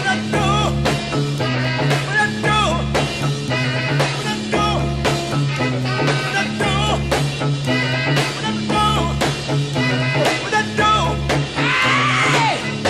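Live funk band recording: an instrumental groove with a bass figure that repeats about every two seconds under choppy chords and drums. A high swooping sound comes in near the end.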